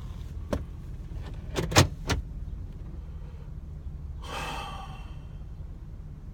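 Steady low road and engine rumble inside a moving vehicle, with a few sharp clicks and knocks about two seconds in and a brief rushing sound, like a vehicle passing, around four seconds in.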